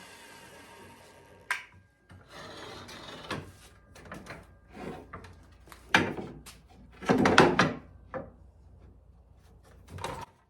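Wood being handled: scattered knocks and short scrapes of wood rubbing on wood, with the loudest scraping about seven seconds in.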